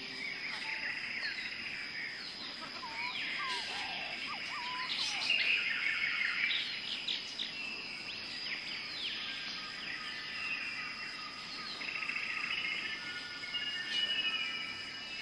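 Woodland ambience of mixed birdsong, many overlapping chirps and whistled calls, over a steady high-pitched insect drone.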